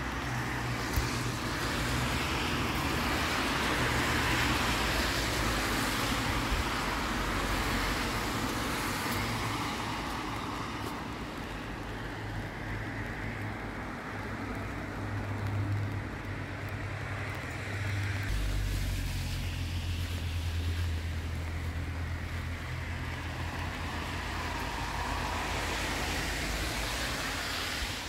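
Road traffic: the noise of cars passing on a road, swelling in the first few seconds and again near the end, over a steady low rumble.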